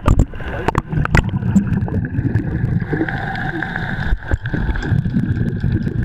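Sea water heard through a camera that has just gone under the surface: a few sharp splashing clicks as it goes under, then a constant muffled underwater rumble with a steady high hum.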